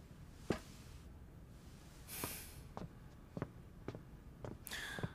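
Faint footsteps, a soft step every half second or so, with a slightly louder knock about half a second in as a tray of wine cups is set down on the table, and two brief rustles of cloth.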